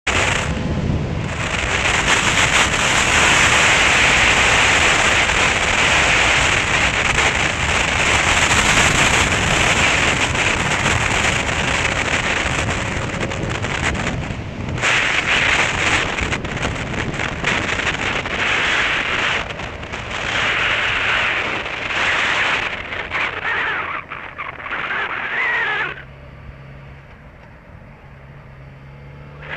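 Wind rushing over the microphone of a camera mounted on a moving motorcycle, with the engine underneath. In the last few seconds the wind noise falls away and the engine's low note is heard, slowly rising in pitch.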